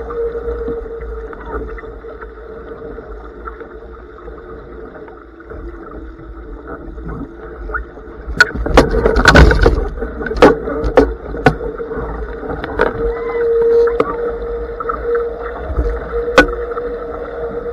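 Wind and water rushing past a Blaze sailing dinghy, muffled, over a steady hum. Between about 8 and 12 seconds in the rushing grows louder with a run of sharp knocks and thumps as the sailor crosses the boat in a gybe, and one more knock comes near the end.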